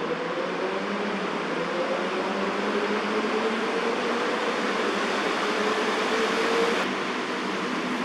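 Steady city traffic noise with one hum rising slowly in pitch, like a vehicle gathering speed. The sound cuts off abruptly near the end.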